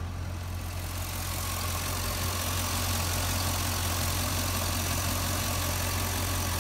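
Stock LS2 V8 engine of a Chevrolet Corvette idling steadily, a low even hum with a hiss over it that grows a little louder about a second in.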